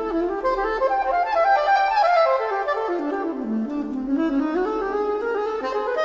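Background music with a melody of quick running notes that dips low about three and a half seconds in and then climbs back up.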